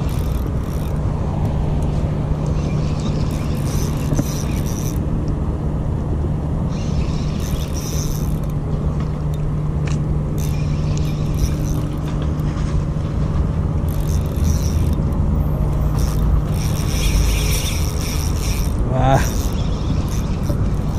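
Small spinning reel being cranked while fighting a hooked queenfish on light braid, in short bursts of winding every few seconds, over a steady low hum.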